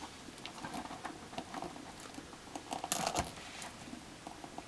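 Small clicks and rubbing of hard plastic as fingers work at an action figure's hand and wrist joint, with one louder click about three seconds in.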